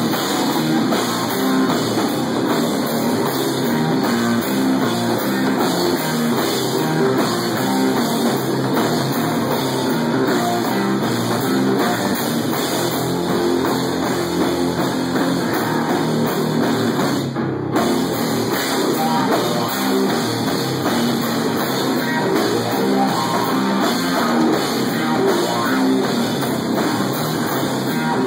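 A live stoner-metal rock band playing loud and without a break: electric guitar and drum kit driving a heavy groove.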